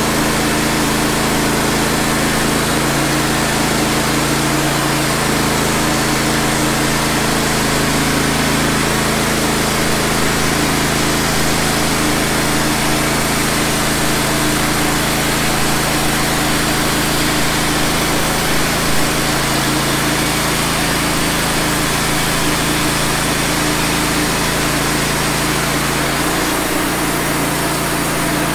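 Wood-Mizer LT15 band sawmill running steadily under load, its band blade sawing through a wide pine log as the head is pushed along by hand. The engine note changes about two seconds before the end.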